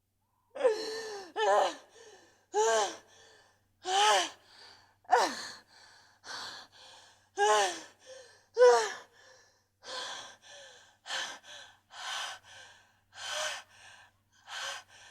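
A woman sobbing in distress: short gasping, ragged breaths about once a second, several of them breaking into brief whimpering cries that fall in pitch.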